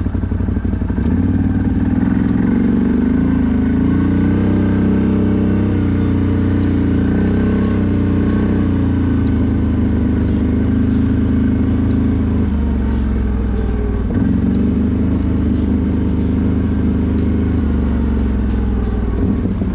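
CFMoto 1000 ATV's V-twin engine running under way, its revs climbing a few seconds in, dropping back around the middle and picking up again soon after, with scattered light knocks from the machine.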